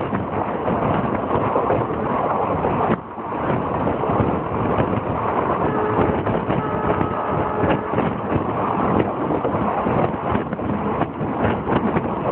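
Passenger train running along the track, a steady rumble and rattle with many small clicks and wind buffeting the microphone. The sound drops briefly about three seconds in.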